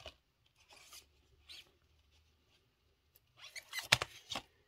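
Cardboard Blu-ray slipcovers rustling and scraping as they are handled and slid against each other: a few faint rustles, then a louder cluster of scrapes about three and a half seconds in.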